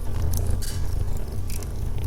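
Wood logs burning in a fireplace: irregular crackling with a few sharp pops over a steady low rumble of the flames.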